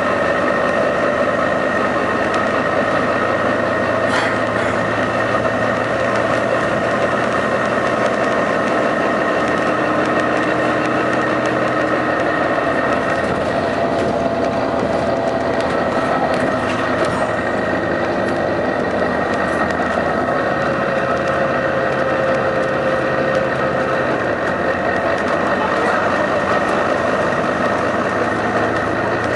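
Volvo B9TL bus's six-cylinder diesel engine running steadily, with a high steady tone above the engine note. The uploader says the engine gives a random hissing noise that sounds like a dodgy turbo.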